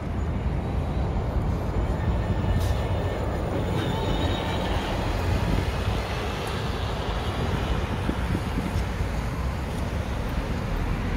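Steady rumble of city street traffic as a battery-electric Renault Trucks D Wide Z.E. garbage truck drives past, mostly tyre and road noise with no diesel engine note.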